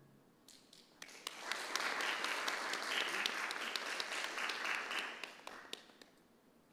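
Audience applauding. It starts about half a second in as scattered claps, swells into full applause within a second, and fades away near the end.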